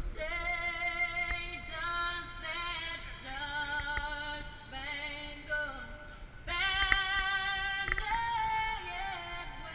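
A woman singing solo, holding long, sustained notes that step from pitch to pitch, with a short lull and then a louder phrase about six and a half seconds in.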